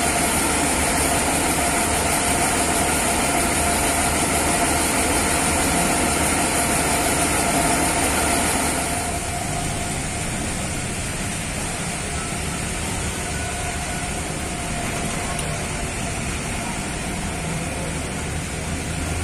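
Large coach's rear engine idling close by, a steady drone with a thin whine over it. About nine seconds in it drops away to a quieter, more distant coach engine running.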